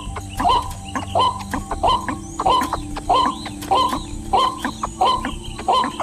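Repeated yelping calls from an animal caught in a wire cage trap, one about every two-thirds of a second, over background music with held low notes.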